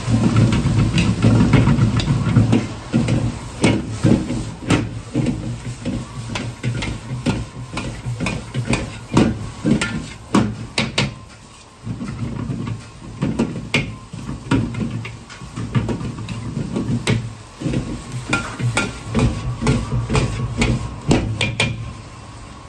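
A metal ladle clanking and scraping against a carbon-steel wok in quick, irregular strikes as fried rice is stir-fried and tossed, over the low rumble of the gas burner.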